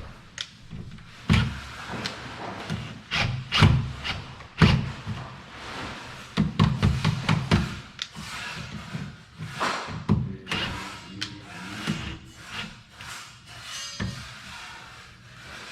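A series of irregular knocks, taps and rubbing sounds, with a quick run of clattering knocks a little before the middle.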